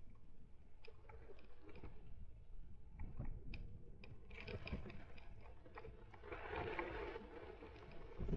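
Electric mountain bike being ridden, heard from a frame-mounted camera: a low rumble of tyres and wind with scattered small clicks and rattles from the bike, and a brief hiss about six and a half seconds in.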